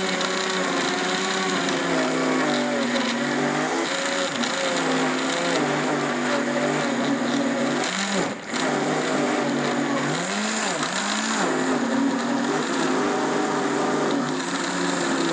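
Countertop jug blender motor running at speed, puréeing chunks of apple, cucumber and banana with water into a thick smoothie; its pitch wavers as the load changes. About eight seconds in it stops for a moment, then spins back up with a rising whine and runs on.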